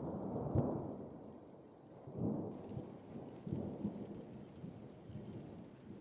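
Thunder rumbling in rolls: a sudden onset swelling to its loudest just over half a second in, then further rumbles about two, three and a half and five seconds in, with rain behind it.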